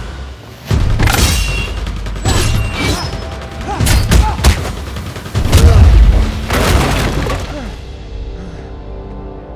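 Film fight sound effects: a run of heavy punches and blows, each with a deep boom, over an orchestral score. The blows stop about three-quarters of the way through, and the music carries on with long held notes, growing quieter.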